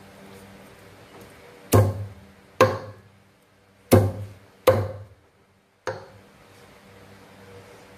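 Cleaver chopping steamed rat on a round wooden chopping block: five sharp, uneven chops in the middle few seconds, each cutting through meat and bone into the wood.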